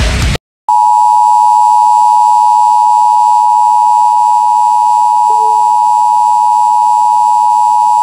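Emergency Alert System attention signal: a loud, steady two-tone alarm (853 and 960 Hz) starting just under a second in and cutting off abruptly at the end. Before it, the tail of a harsh digital data burst from the alert's SAME header, then a brief gap.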